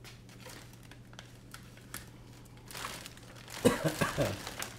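Hands rummaging through bins of parts and packaging: scattered crinkling and light clicks, then a louder burst of clattering and knocks about three and a half seconds in.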